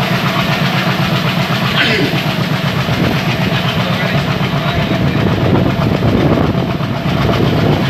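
ALCO diesel locomotive engine chugging under load as the train pulls away from a station, a fast even pulsing beat, heard from a coach with the rumble and clatter of the wheels on the rails underneath.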